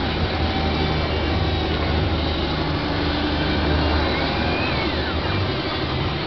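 Small electric gear motors of a Hobby Engine RC toy excavator whining as the boom and bucket move, the whine rising and falling in pitch, over a steady low rumble.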